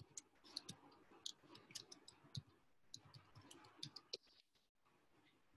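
Faint computer keyboard typing: a quick, irregular run of key clicks that stops about four seconds in.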